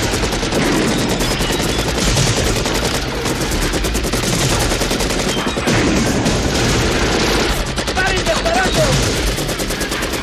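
Sustained automatic gunfire from several assault rifles and a belt-fed machine gun firing together, a rapid, unbroken rattle of shots.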